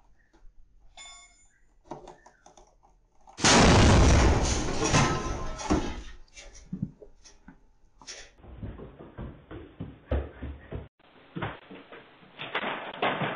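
A large tyre exploding about a third of the way in: one sudden, very loud bang, followed by a couple of seconds of noise dying away as debris falls.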